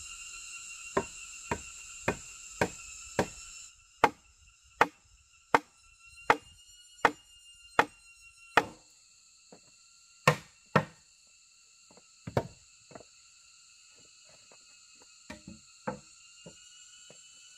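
Repeated sharp blows of a tool striking wood, like chopping. About a dozen come at an even pace, quicker at first, then they slow to a few scattered knocks. Steady high insect song runs underneath.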